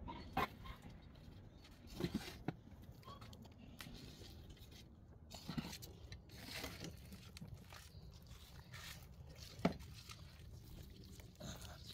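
A hand shovel scooping potting soil and dropping it into a plastic tub around a papaya plant: soft scrapes and rustles of soil, with a few short knocks of the shovel, the sharpest near the end.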